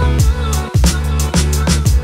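Background music with a steady drum beat over deep bass notes.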